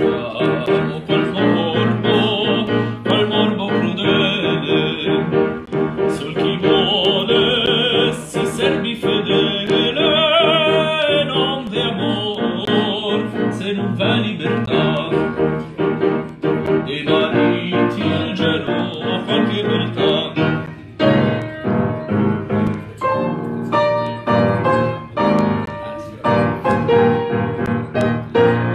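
An upright piano accompanying a man singing an Italian song in operatic style. The voice falls away about two-thirds of the way through, and the piano plays on alone.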